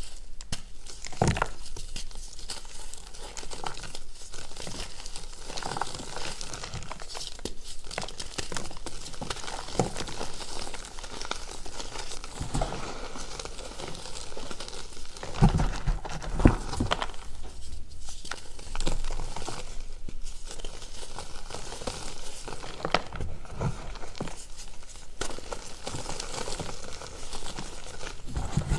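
Reformed gym chalk crushed and crumbled by hand: a steady run of dry, powdery crunching and crackling as chunks break and crumbs fall. There are a few louder crunches about halfway through.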